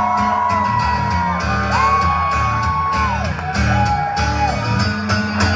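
Live acoustic guitar playing in a steady strummed rhythm, with long drawn-out whoops from voices over it.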